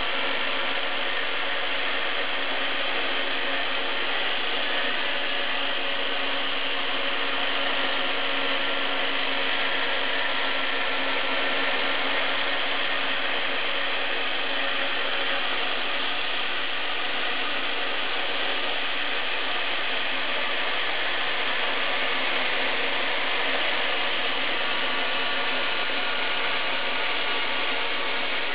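Homemade CNC router at work: the spindle spins and its cutter mills a slot through a sheet as the gantry moves it along. A steady, even machining noise with a few held tones underneath, unchanging throughout.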